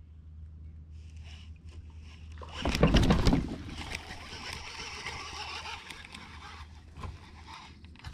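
A loud splash with sloshing water beside a kayak about three seconds in, followed by a few seconds of hissing water noise that dies away.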